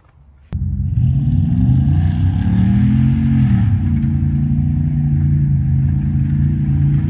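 Car engine running, coming in abruptly about half a second in. It revs up and back down once about three seconds in, then holds a steady note.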